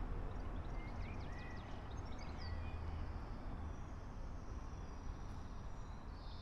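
Small birds chirping in short calls, with a thin high note held in the middle, over a low steady rumble.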